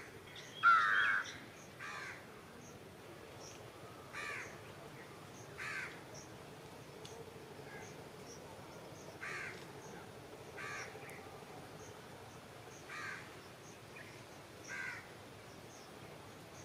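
Crows cawing again and again, about nine short caws spread out, the loudest about a second in, with faint high chirps in between.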